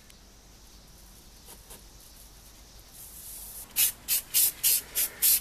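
Aerosol can of hairspray spraying onto a helmet in short hisses: a soft hiss about three seconds in, then about six quick bursts, roughly three a second. The hairspray is being laid on as glue for metal flake.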